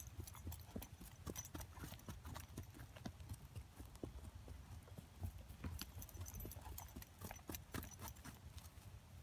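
Hoofbeats of a saddled pony cantering in circles on grass, a run of irregular dull thuds.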